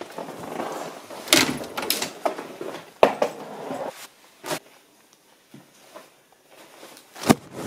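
Clothes rustling as a leather jacket and then a shirt are pulled off, with several sharp knocks and bumps; the loudest come about three seconds in and near the end.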